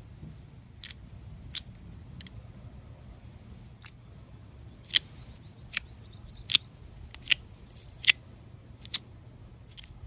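Clear slime being handled, with air pockets popping in short, sharp clicks about once a second, the loudest ones in the second half.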